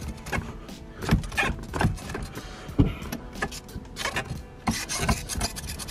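Hydraulic handbrake lever with a 3D-printed extension handle being pulled and released by hand, giving a series of irregular clicks and clunks.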